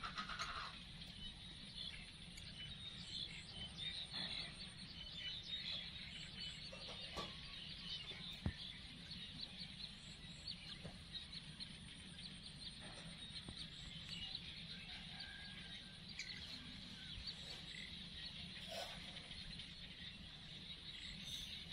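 Faint outdoor background of distant birds calling, with many small high chirps and a low steady hum; a single sharp click about eight and a half seconds in.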